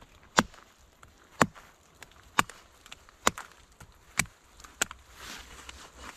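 Hatchet chopping into a fallen log's bark: six sharp strikes about a second apart, the last one lighter, followed by a short rustle.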